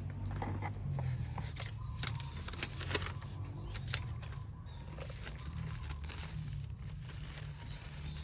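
Packaging being handled during an unboxing: crinkling and rustling with scattered small clicks and one sharper tick about four seconds in, over a steady low hum.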